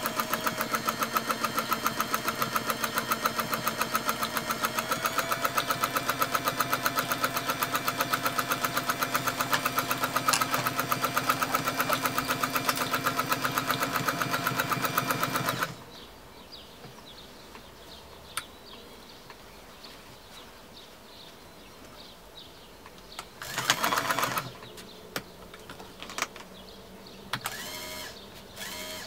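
Bernina 117-K sewing machine stitching at a steady speed: a fast, even ticking of the needle mechanism over a steady motor hum. It stops abruptly about halfway through, runs again for under a second some eight seconds later, and a few small clicks follow near the end.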